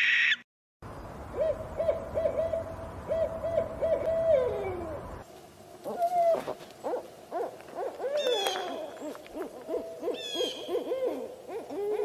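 Owls calling: a loud, high screech cuts off right at the start. A run of short, evenly pitched hoots follows, the last one sliding down. About five seconds in, a busier stretch of many overlapping hoots begins, with a couple of higher rising calls.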